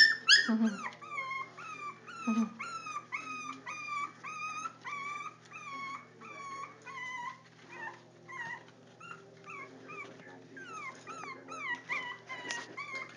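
Four-week-old Jack Russell terrier puppies whimpering and yelping: a string of short, high-pitched cries, about two a second, each sliding down in pitch, louder at the start and again near the end.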